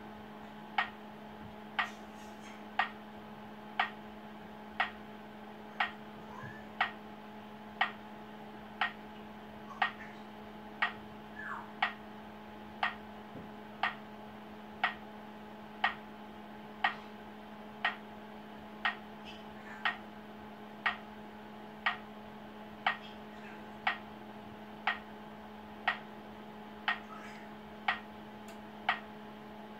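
Acoustic pedestrian signal for blind people ticking slowly and evenly, about once a second, while the pedestrian light shows red: the slow tick marks 'don't cross'. A steady low hum runs underneath.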